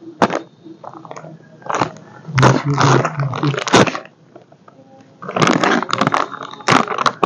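Plastic protein-powder pouch being handled and opened at its zip top, rustling and crinkling in several bursts.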